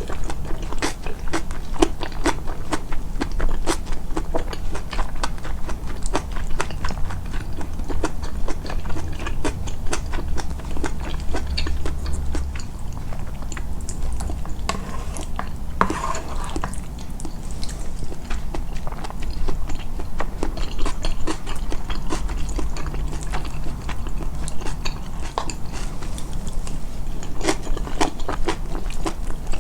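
Close-miked chewing and biting of food, a dense run of wet clicks and small crunches, boosted in editing to stand out. A short ringing tap sounds about halfway through.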